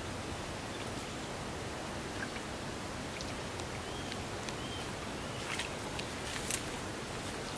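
Steady outdoor hiss, with a few brief rustles and clicks from plants on the bank being pushed aside, most of them in the second half. Two short faint chirps come a little past the middle.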